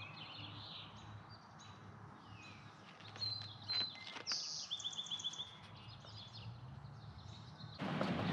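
Small birds chirping and trilling over a low steady hum. Near the end it gives way abruptly to louder handling noise with sharp knocks.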